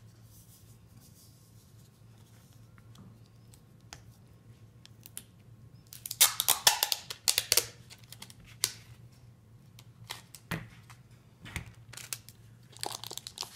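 Clear packing tape being pulled off its roll with a loud rasping rip about six seconds in and again near the end, with light clicks of handling tape and a cardboard tube in between.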